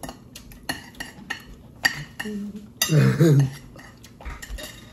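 Spoon and fork clinking against plates and bowls during a meal, a run of short sharp clicks. About three seconds in, a man's voice gives a brief loud sound, the loudest thing here.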